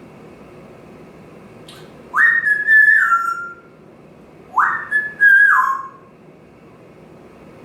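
African grey parrot whistling two phrases, each a quick rising slide into a few held notes that step downward.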